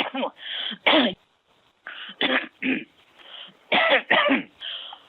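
A woman in a coughing fit, heard over a telephone line: about ten short, hacking coughs in quick bunches, with breathy gasps between them. She says the coughing comes from straining her voice to shout down a bad connection.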